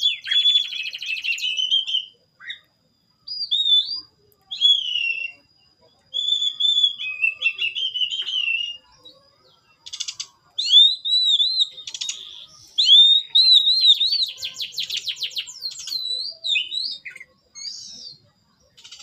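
Songbirds singing: varied whistled phrases, some sliding up and down, alternating with fast rattling trills, broken by short pauses.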